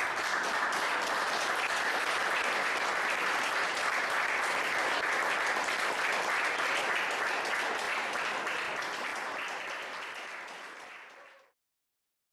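Audience applauding: dense, steady clapping that starts at once, thins out after about ten seconds and then cuts off.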